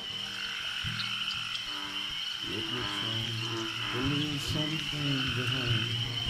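A night chorus of frogs and insects: a steady high trill throughout, with croaking calls from about halfway through and music faintly underneath.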